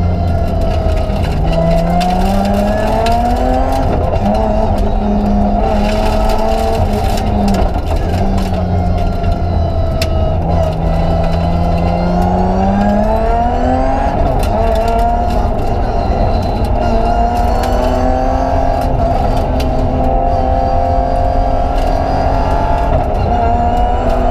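In-cabin sound of a BMW 325 Group A rally car's straight-six engine driven hard: the note climbs and falls again and again with gear changes and lifts, over a steady loud drone of road and drivetrain noise. Scattered sharp clicks and knocks run through it.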